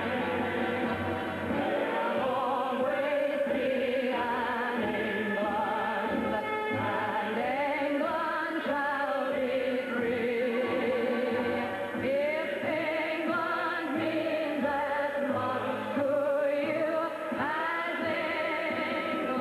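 Music with singing: long held notes sung with a strong vibrato, some sliding between pitches, in a choir-like or operatic style.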